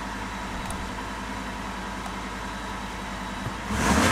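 Supercharged Ford F-150 engine idling steadily, heard from inside the cab. Near the end it is revved and gets suddenly louder.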